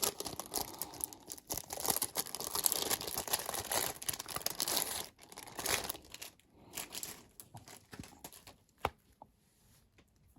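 Packaging crinkling and tearing as a boxed product is unwrapped by hand: dense crackling for about five seconds, then a few separate rustles and clicks that die away near the end.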